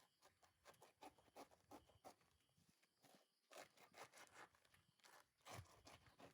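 Faint, irregular rustling and scraping with many small clicks and taps, like something being handled or moved about.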